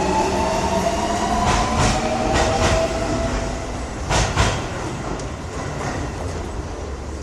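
Metro train departing. Its motors give a slightly rising whine that fades out after about three and a half seconds, while the wheels click over rail joints, with a louder clack a little after four seconds. The low rumble slowly drops away as the train pulls off.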